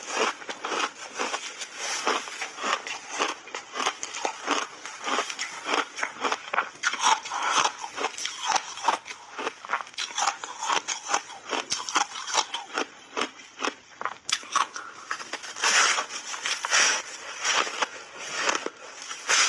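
Refrozen block ice being bitten and chewed up close, a dense, unbroken run of sharp cracks and crunches.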